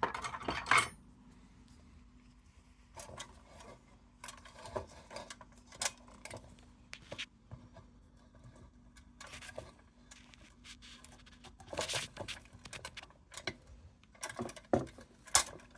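Thin sheet-metal and wire parts of an old tin lantern clinking and scraping as the wire globe guard is worked onto the frame and crimped together, in short irregular clicks and rattles.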